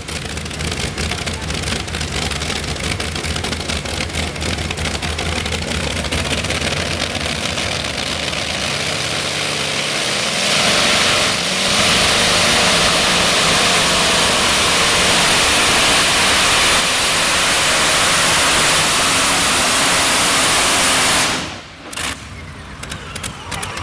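Modified pulling tractor's supercharged racing engine running at the starting line with a low, steady rumble. About eleven seconds in it goes to full throttle for the pull, much louder and rougher. The sound cuts off abruptly about a second before the end.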